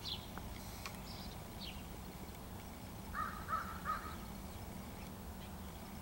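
A crow cawing three short times in quick succession about three seconds in.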